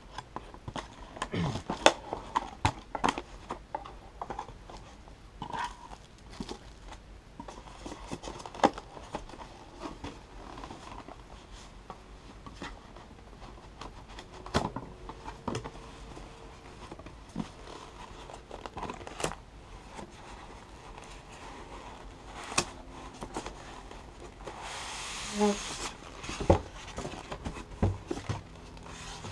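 A cardboard box being opened and handled: flaps and packaging scraping and rustling, with many short knocks and taps. About 25 s in, a roughly one-second scraping rush as the polystyrene foam packing insert is slid out of the box.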